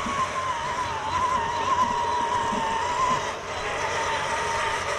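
Electric motors of 1/10-scale RC rock crawlers whining as the trucks crawl off, a steady high whine that wavers slightly in pitch with the throttle.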